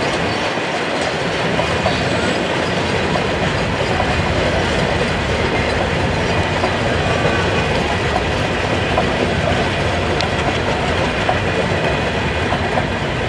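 Passenger coaches of an intercity Bangladesh Railway train rolling slowly past on the track, a steady, unbroken wheel-on-rail noise.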